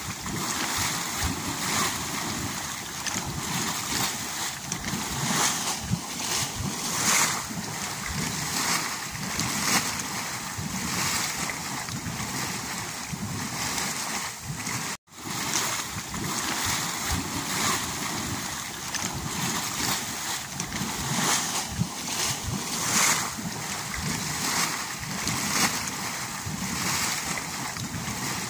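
Spring water welling up and churning through a shallow pool, a steady rushing splash. It cuts out for a moment about halfway through.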